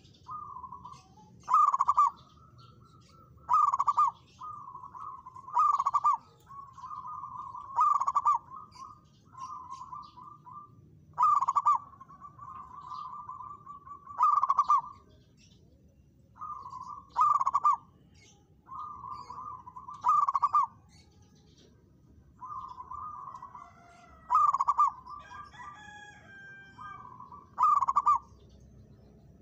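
Zebra dove (perkutut) cooing its song over and over: soft rolling coos broken by a loud accented note about every two to three seconds, some ten phrases in all.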